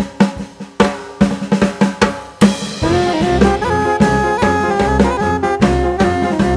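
Background music: a solo drum-kit fill of snare and bass drum hits, then a full swing-style band with held instrument notes comes in about two and a half seconds in.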